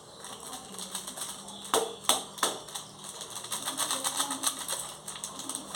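Knife chopping vegetables on a cutting board: three sharp knocks about two seconds in, then a quick run of light, even taps.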